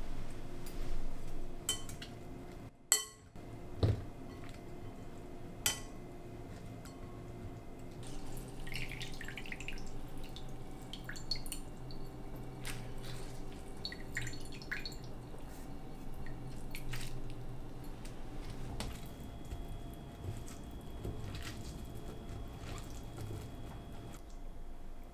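Hands squeezing water out of steamed cabbage: wet squishing, with water dripping and trickling into a bowl. A few sharp knocks of glassware come in the first few seconds.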